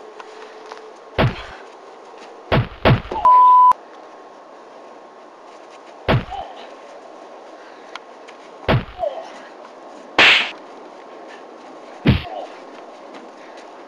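A staged fight's dubbed-in punch and kick sound effects: seven heavy thwacks spaced a few seconds apart, one of them about ten seconds in brighter and hissier than the rest. A short steady beep sounds about three seconds in.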